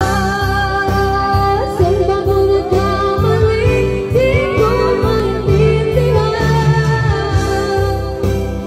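Karaoke singing: a voice sung through a microphone and speaker over a backing track with a steady beat.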